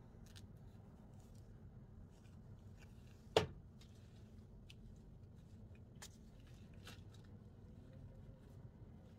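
Faint scattered clicks and taps of small objects being handled over a low steady hum, with one sharp knock about three seconds in.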